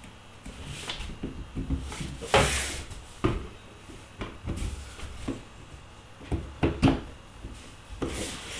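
Hard resin 3D-printed model parts being handled and set down on a workbench: scattered light knocks and clicks, with a short rustling scrape about two and a half seconds in and another near the end.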